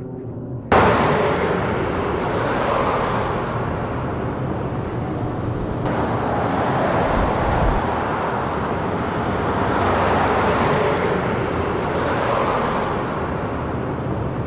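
Road traffic noise: a steady, loud wash with slow swells in level. It cuts in abruptly under a second in.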